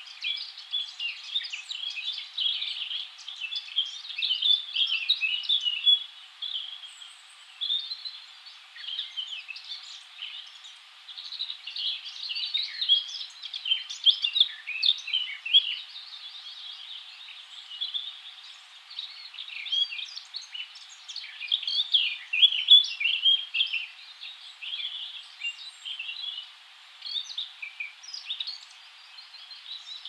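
A chorus of songbirds singing together in spring woodland: many overlapping high chirps and song phrases, coming in bursts with short lulls, over a faint steady hiss.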